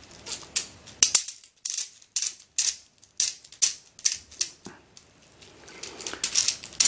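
Plastic ring puzzle with coloured balls being twisted by hand to scramble it. Its rings and balls give a string of short, sharp plastic clicks, irregular at about two a second, bunching closer together near the end.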